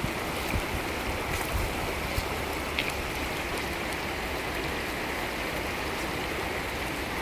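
Mountain stream rushing steadily over rocks, with a few soft low bumps in the first three seconds.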